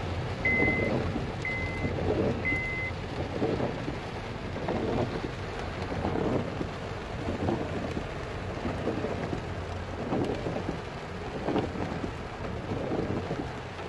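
Heavy rain falling on a moving car, heard from inside, over a steady low rumble, with a swell in the noise about every second and a half. In the first three seconds there are three short high beeps, a second apart.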